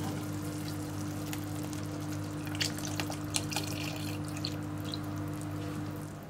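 Thick coconut milk being poured from a bowl into a pot of cooked sago and banana, splashing softly, with a few small splashes and drips between about two and a half and four and a half seconds in.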